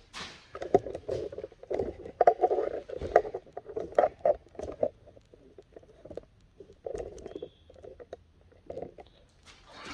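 Irregular knocking, rattling and scraping as the hole saw and the cut workpiece are handled, with no drill running. There is a dense run of knocks over the first five seconds, then a few scattered ones.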